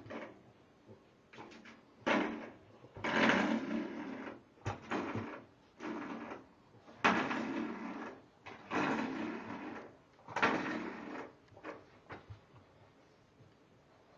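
Metal spring doorstop rattling as an English Bulldog puppy paws and mouths it, in about seven bursts of a second or so each.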